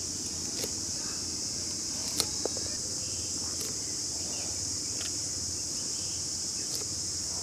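A steady, high-pitched chorus of insects, with a couple of sharp clicks about two seconds in.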